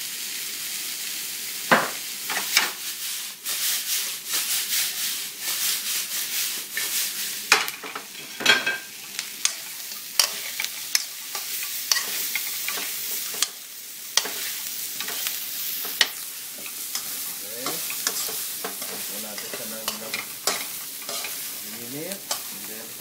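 Deep-fried shrimp being stir-fried in a hot steel wok: oil sizzling steadily under many irregular scrapes and clanks of a metal spatula against the wok.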